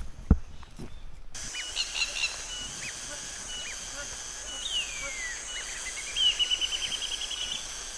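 A couple of footfalls on the trail, then wild birds calling over a steady high hiss: a few short chirps, a long falling whistle, and a fast trill of about ten quick notes near the end.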